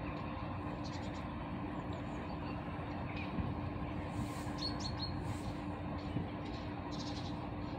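Steady distant rumble with a low hum, as an electric train runs in the distance, and a small bird chirping three quick notes about four and a half seconds in.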